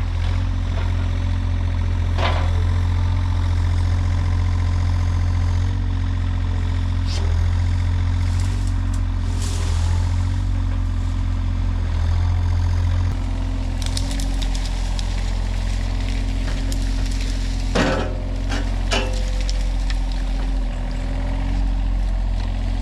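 A large engine running steadily at an even speed, with a few sharp knocks, about two seconds in and twice near the end.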